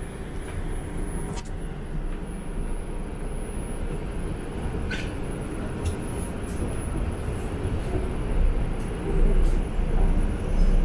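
Subway train running through a tunnel, heard from inside the car: a steady low rumble of wheels on track with a few brief squeals and clicks, growing louder near the end.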